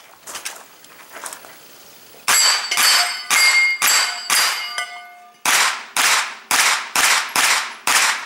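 Pistol caliber carbine firing a stage string. There are five shots about half a second apart, with steel targets ringing after the hits, then a short pause and a faster run of about seven shots.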